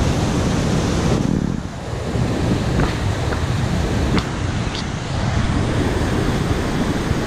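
Fast river rapids rushing steadily, with wind buffeting the microphone.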